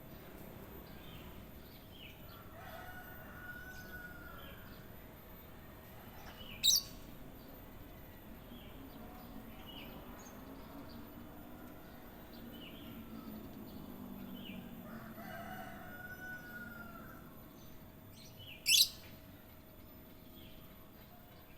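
Kutilang emas bulbul singing: scattered short chirps and whistled notes, with a curving whistled phrase heard twice. Two loud, very short sharp notes stand out, about a third of the way in and near the end.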